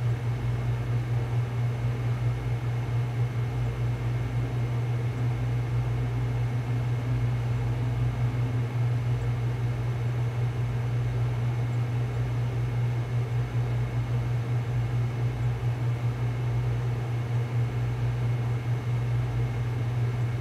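A steady low machine hum with an even hiss above it, unchanging throughout.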